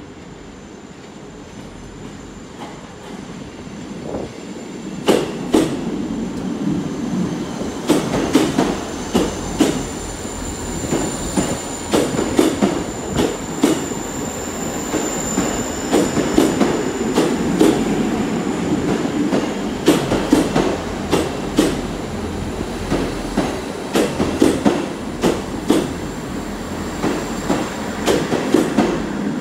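South Western Railway Class 159 diesel multiple unit coming into the platform, its wheels clattering irregularly over points and rail joints, with a high steady wheel squeal. The sound builds from about four seconds in.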